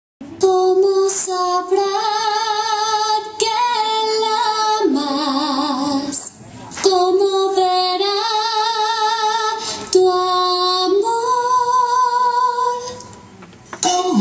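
A female voice singing a slow melody of long held notes with vibrato, in phrases of about three seconds, with a short break about six seconds in and a fade near the end.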